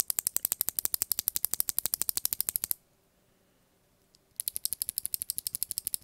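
A loose Kailh BOX Jade-type clicky keyboard switch worked rapidly by hand: a fast, even run of sharp clicks, about a dozen a second. The clicks stop almost three seconds in and start again after a pause of about a second and a half.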